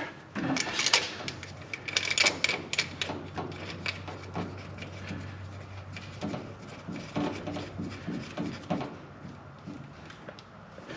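Irregular light clicks, taps and knocks of an A/C hose and its metal fittings being handled and positioned by hand, busier in the first half, over a faint steady hum that fades near the end.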